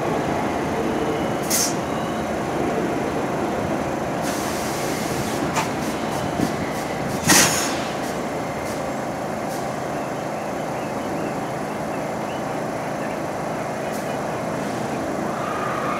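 New York City subway train running steadily with an even hum. A short burst of air hisses about four seconds in, and a few sharp clanks follow, the loudest about seven seconds in.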